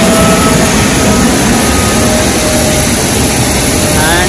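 Loud, steady jet aircraft engine noise on an airport apron, with a thin high whine held throughout.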